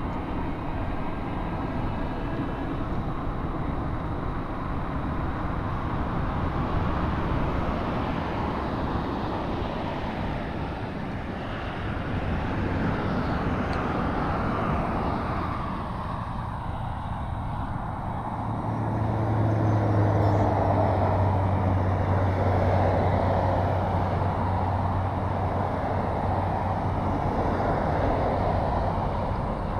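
Interstate highway traffic passing in a steady stream, a continuous noise of tyres and engines that swells and fades slightly as vehicles go by. A low steady hum joins about two-thirds of the way in.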